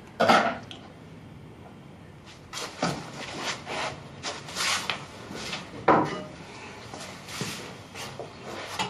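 A wooden dresser drawer is pulled open with a sharp knock, then objects rattle and clatter as someone rummages through it, with another loud knock about six seconds in.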